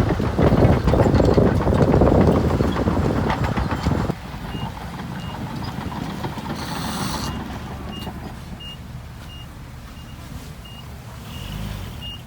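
Heavy earthmoving machine working, its engine running under the clatter of rock and gravel. About four seconds in, this stops abruptly and a reversing alarm beeps steadily, about three beeps every two seconds, with a short burst of air hiss about halfway through.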